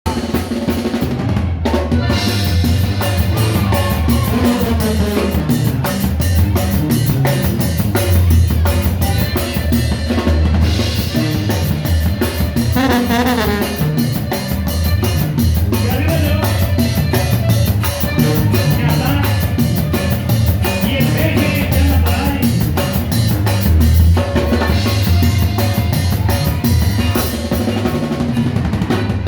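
Loud dance music with a steady drum-kit beat and heavy bass.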